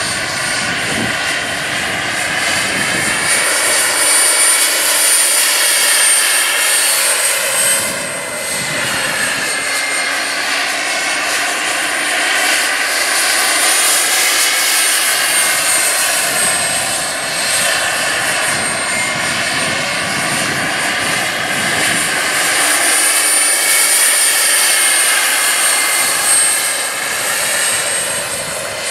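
Radio-controlled model helicopter with a gas turbine engine in flight: a steady high turbine whine with rotor noise that slowly rises and falls in pitch and loudness as the helicopter moves about.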